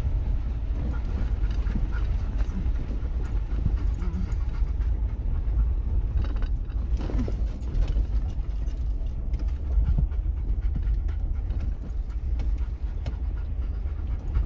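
Steady low rumble of a vehicle crawling over a bumpy dirt trail, heard from inside the cabin, with scattered rattles and knocks from the jolting, and a dog panting.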